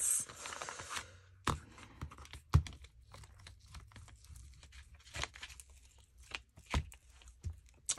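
Paper being handled: a short tearing rustle in the first second, then scattered light taps and clicks.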